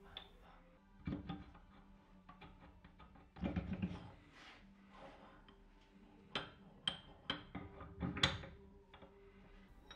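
Steel dies of a blacksmithing guillotine (smithing magician) being slid through its slots and set in place by hand: scattered metal clicks, clinks and short scrapes, a few ringing briefly, with the busiest handling about three and a half seconds in and again around eight seconds.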